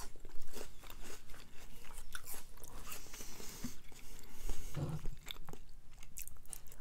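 A person chewing and biting a mouthful of noodle salad, with many small irregular mouth clicks and crunches.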